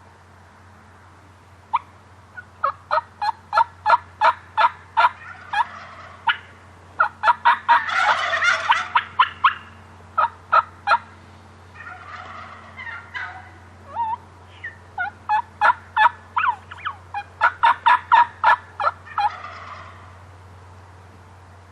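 Merriam's wild turkeys calling: runs of sharp yelps, two to three a second, broken by rattling gobbles. The loudest gobble comes about 8 s in, with weaker ones around 12 s and near the end.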